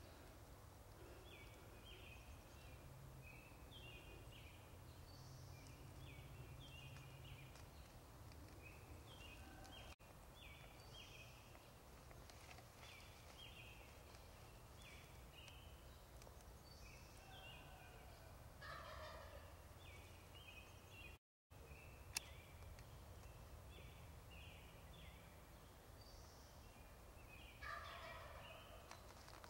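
Wild turkey gobbling faintly twice, about two-thirds of the way in and again near the end, over short high chirps that repeat in small groups throughout.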